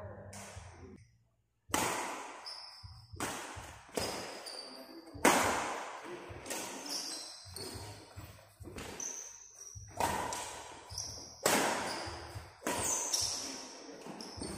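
Badminton rally: sharp racket-on-shuttlecock hits about once a second, echoing in the hall, with quick squeaks of shoes on the court between them. The sound drops out briefly about a second in.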